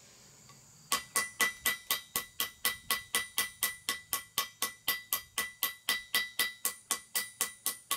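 Small hammer tapping rapidly on a rusty iron canister-shot ball, about four light strikes a second, each with a short metallic ring, chipping the rust crust off the ball. The tapping starts about a second in.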